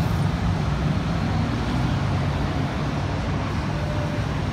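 Road traffic: motor vehicles driving past with a steady low rumble.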